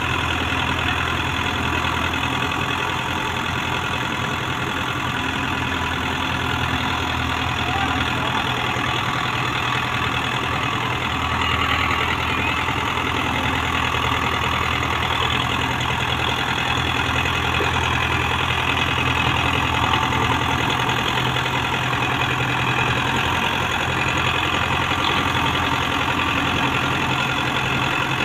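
Tractor diesel engines running steadily under load, moving a heavily loaded sugarcane trolley. The engine note gets a little louder from about twelve seconds in to past the twenty-second mark.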